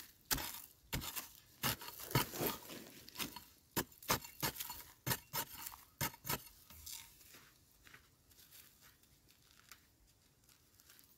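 A small metal digging tool scraping and prying at dry, stony soil, with clods and pebbles knocking and rattling as it goes. There is a quick, irregular run of sharp scrapes over the first six seconds or so, then softer scratching that fades out.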